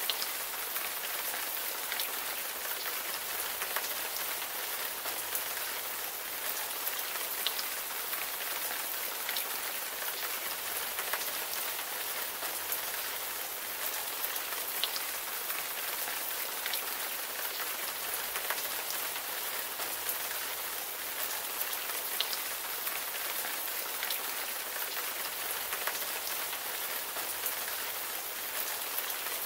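Steady rainfall, an even hiss with scattered small drop ticks.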